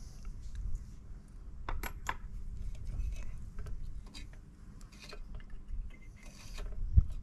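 Hand tools clicking, clinking and scraping on the metal of a small 8 HP mower engine, irregular light metallic taps while the ignition coil and its earth connection are worked on. A dull thump near the end.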